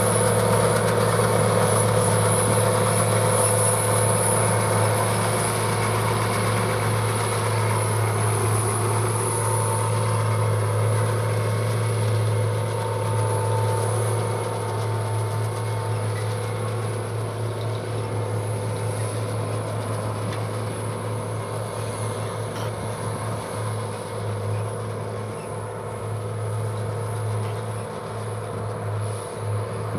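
Tractor engine working under load while pulling a Pöttinger Jumbo loader wagon, its pickup gathering swaths of cut grass for silage: a steady mechanical drone that fades gradually as the rig moves away.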